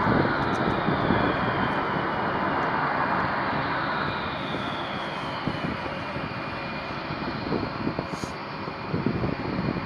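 B-1B Lancer's turbofan jet engines running as the bomber taxis past. A high whine glides down in pitch over the first five seconds, and the steady rumble slowly fades.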